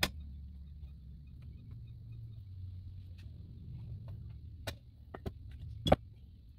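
Steel open-end wrench working a pressure switch tight onto a brass nipple on a well-tank control tee held in a vise. There are a few sharp metallic clicks and clinks, the loudest about six seconds in, over a low steady rumble.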